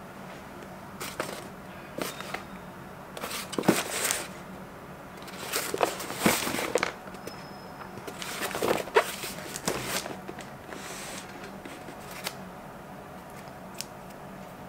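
Cardboard shipping box being handled and moved about on a wooden table: irregular scrapes and rustles, some brief and some drawn out for about a second, with a few soft knocks.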